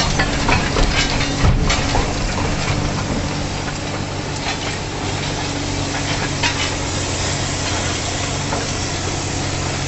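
Heavy machinery engine running steadily, with scattered clanks and knocks, most of them in the first couple of seconds.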